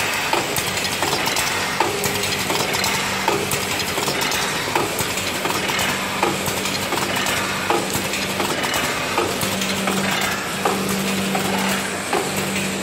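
Screw-feeder weighing and vertical form-fill-seal packing machine running: a steady mechanical hum and rattle, with a sharp clack about every one and a half seconds as it cycles.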